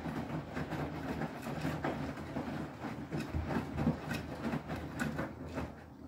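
Front-loading Beko WTK104121W washing machine tumbling its drum in the main wash: a steady motor hum with wet laundry and water sloshing and splashing in the drum, in irregular knocks. It quietens near the end as the drum slows.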